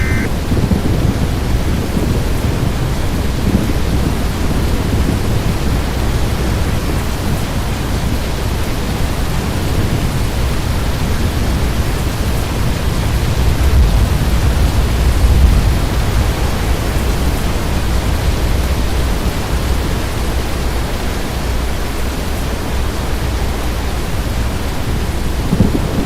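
Strong storm wind buffeting the microphone near a tornado: a loud, steady low rumble with a hiss above it, swelling briefly about fourteen to sixteen seconds in.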